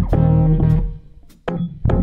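Background music: plucked guitar over a bass line, dropping away briefly about halfway through before the notes pick up again.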